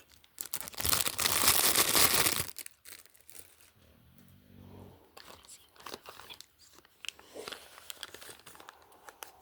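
Packaging being torn open and crinkled by hand: a loud rip lasting about two seconds near the start, then softer rustling and small clicks as the wrapping is handled.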